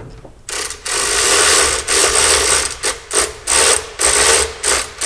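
A ratchet driving bolts in, in one longer burst about a second in and then several shorter bursts with brief pauses, with a steady high whine in each burst. It is running in the mounting bolts of a truck engine's fan hub, not yet fully tightened.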